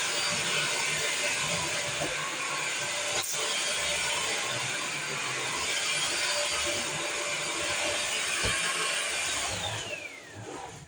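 Battery-powered vacuum cleaner running steadily, then its motor winds down with a falling whine near the end as the battery goes dead.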